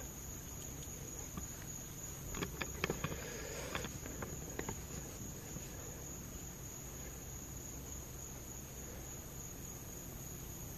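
A night chorus of crickets trilling steadily at a high pitch, with a few soft clicks and taps about two to four seconds in.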